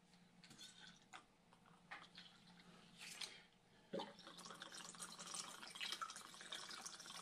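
White rum poured from a bottle through a measured pour spout onto ice in a stainless steel cocktail shaker. There are a few faint clicks, then from about four seconds in a faint, steady trickle.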